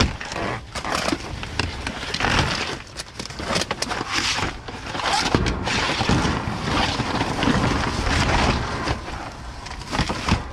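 Rustling, knocking and clattering as trash and salvaged objects are handled and moved about, with many irregular clicks and knocks.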